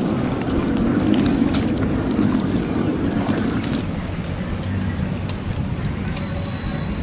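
Steady low rumble of a small boat's motor, with scattered clicks and knocks.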